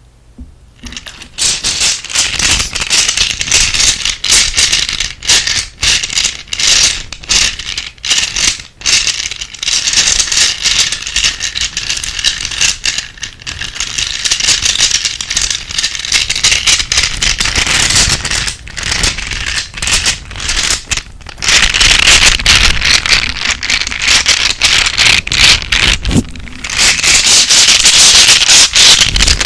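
Close-miked ASMR trigger sounds: dense scratching and rattling with rapid clicks, made by handling an object. It starts about a second in, pauses briefly a few times, and grows louder toward the end.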